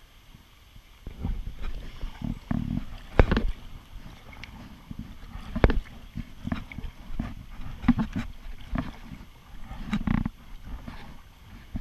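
Kayak paddle strokes, starting about a second in: irregular splashing and dull knocks, with three sharp clacks of the paddle against the kayak.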